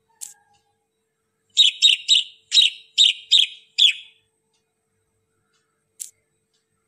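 Sparrow chirping: a run of seven quick, high chirps. A single short high tick comes shortly before the run and another about two seconds after it.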